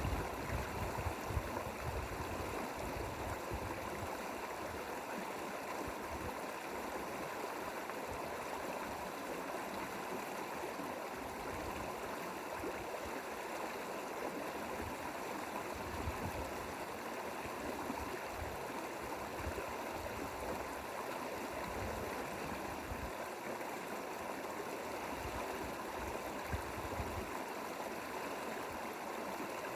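Mountain valley stream: water rushing and gurgling over rocks in a steady, even flow, with occasional low rumbles.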